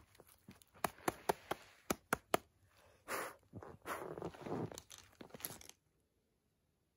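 About seven sharp clicks as gloved hands handle the plug end of an electrical cord, then two breathy puffs of blowing on the plug about three and four seconds in. The sound cuts off shortly before the end.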